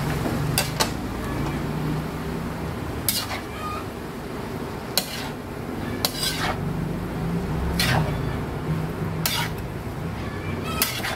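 Metal spatula scraping and knocking against a large metal wok while tossing glass noodles and cabbage: about eight sharp scrapes, irregularly spaced a second or two apart.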